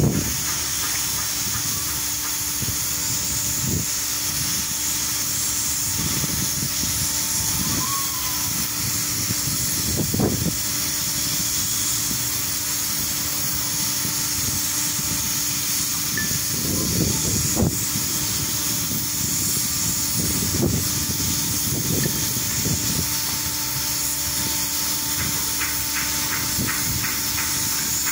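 Steady loud hiss over a constant mechanical hum, with low rumbles now and then; a fast ticking joins in near the end.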